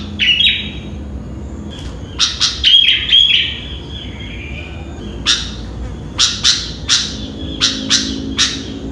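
Sooty-headed bulbul calling in short bright clusters of notes, then from about five seconds in a quick run of sharp repeated notes, around three a second.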